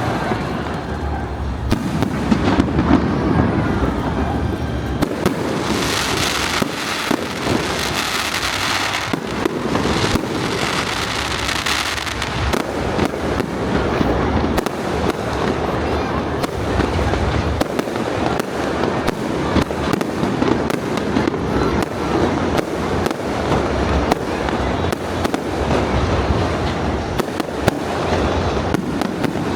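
Aerial fireworks going off in quick succession, with sharp bangs and crackling. The crackle grows dense from about six to nine seconds in.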